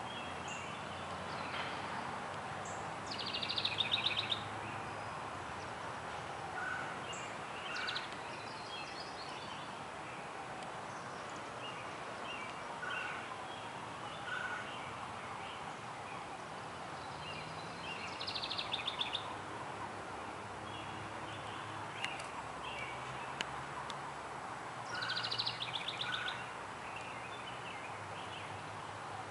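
House wren singing: a rapid trill of many quick notes about a second long, given three times several seconds apart. It sounds over a steady background noise, with a few fainter chirps in between.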